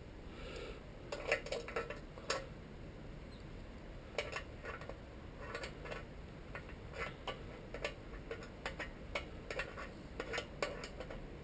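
Irregular small metallic clicks and clinks of hand tools against the fittings while a fuel line is fastened to a motor bike carburetor, in short clusters with brief pauses.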